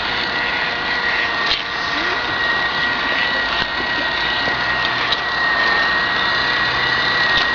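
Motor of a vintage radio-controlled amphibious truck running on the water with a steady high whine over a hiss.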